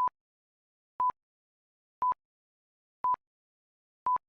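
Electronic interval-timer beeps: five short, identical high beeps, one a second, counting off the seconds.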